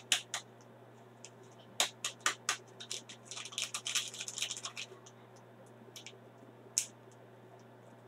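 A small powder sachet handled in the fingers: a few sharp clicks and taps, then a burst of crinkling about three to five seconds in, and two more ticks near the end, over a faint steady hum.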